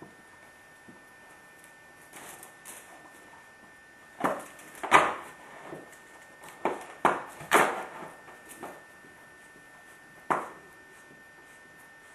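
Cardboard milk carton crackling and crunching as a Great Pyrenees chews and tears at it, in a run of short crunches bunched in the middle and one more near the end.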